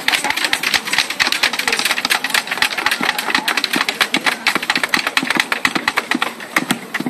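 Rapid, irregular clatter of many weapons beaten against shields by a massed line of warriors, several knocks a second with no letup.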